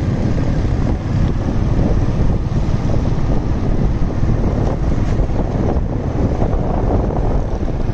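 Wind rumbling steadily on the microphone of a moving motorcycle, with the motorcycle running and its tyres on a wet road underneath.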